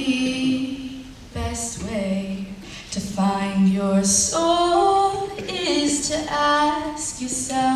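A young woman singing solo in long held notes that glide from one pitch to the next, accompanying herself on acoustic guitar.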